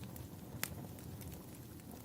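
Wood fire crackling over a low rumble, with scattered small ticks and one sharp pop a little over half a second in.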